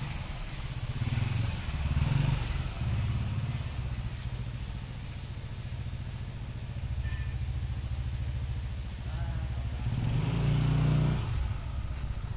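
Motorcycle engine running nearby, swelling louder twice.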